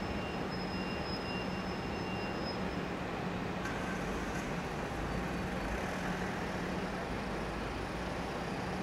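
Small diesel shunting locomotive running with a steady low engine hum as it drives slowly away.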